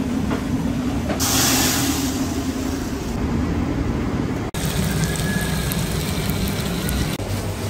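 Steady low rumble and hum of restaurant kitchen machinery, with a louder hiss for about a second, starting about a second in; the hum shifts at a sudden cut about halfway through.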